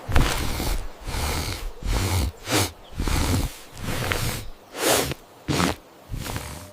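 Cartoon bear sniffing and snorting through its nose in its sleep: a string of short, noisy breaths and snorts, roughly one every second, some with a low rumble. Its nose is being provoked to bring back its lost snore, but no full snore comes.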